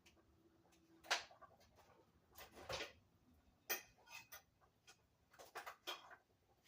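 Faint, irregular clicks and knocks of cookware being handled at the stove, a few of them a little louder, about a second in and near four seconds.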